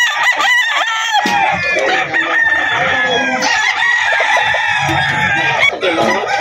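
Gamefowl roosters crowing over one another, several calls overlapping without a break, with clucking mixed in.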